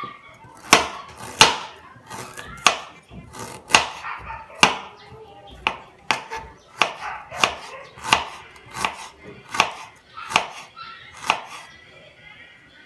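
Kitchen knife slicing ginger on a cutting board: a regular series of sharp knocks, a little under one a second, as each stroke of the blade hits the board. The knocks stop about a second and a half before the end.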